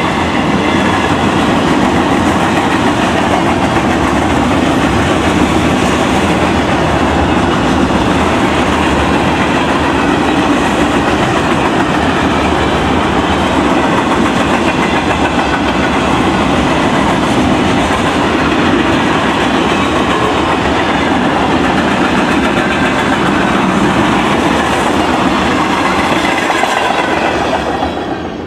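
Freight train rolling past close by, a steady loud clatter and rumble of railcar wheels on the rails, which dies away near the end.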